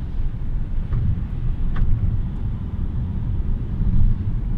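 Steady low rumble of a car, heard from inside the cabin, with a faint tick or two.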